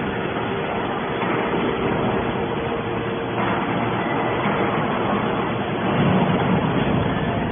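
Hydraulic scrap metal baler running: a steady mechanical noise of the motor and hydraulic pump, with a low hum under it and a slight swell in level a little over a second in.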